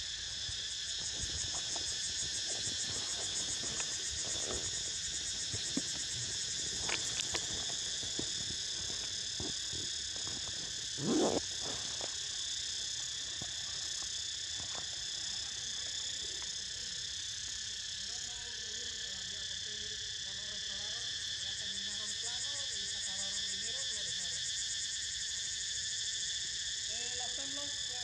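Cicadas droning steadily in a dense chorus, a high, even buzz with a fast pulsing in its highest part. A brief low thump cuts through about eleven seconds in.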